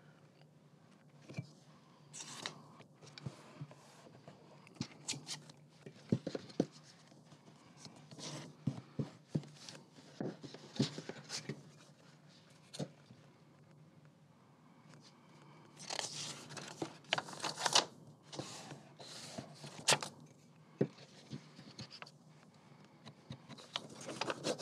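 A book page being marked, folded over and creased with a bone folder: short bursts of paper rustling and scraping with small clicks, busiest about two-thirds of the way through.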